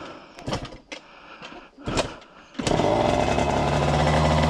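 A few clicks and knocks, then a Derbi 50 two-stroke engine with an 80cc Airsal kit starts about two and a half seconds in and runs loud and steady.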